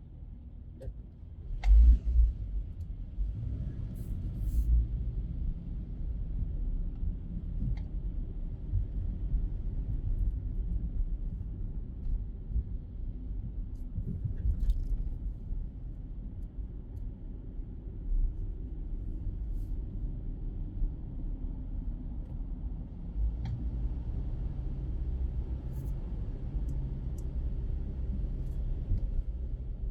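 Low, steady rumble of a car's road and engine noise heard from inside the cabin while driving, with a sharp thump about two seconds in.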